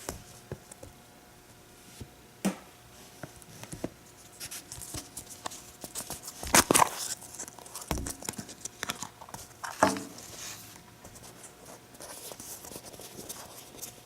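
Hands handling a small squishy toy and its plastic: scattered crinkling, scratching and light tapping. The sounds are busiest and loudest in the middle, with a sharp tap about two and a half seconds in and another near ten seconds.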